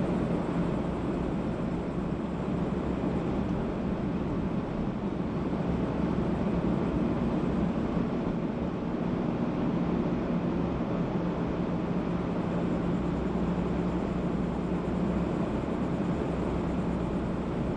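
A car driving at a steady speed: continuous road and engine noise with a steady low hum.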